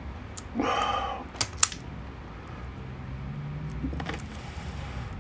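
Small parts handled on a workbench: a few sharp clicks and knocks, the loudest about a second and a half in, with a brief pitched sound, like a muttered voice, just before them and a low hum in the second half.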